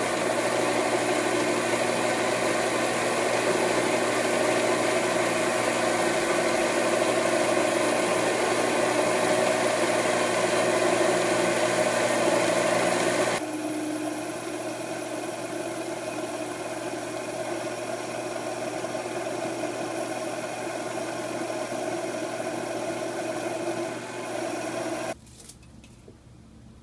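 Grizzly G0765 7x14 benchtop mini lathe running, its high-speed steel tool taking a deep cut in aluminum round stock: a steady machine hum of several tones that the lathe shrugs off easily. The sound drops suddenly about halfway and cuts off about a second before the end.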